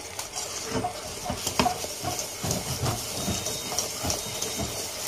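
Wire whisk beating soft mashed potatoes in a metal pot, scraping and clicking against the pot's sides and bottom at about two to three strokes a second, as milk is worked into the mash.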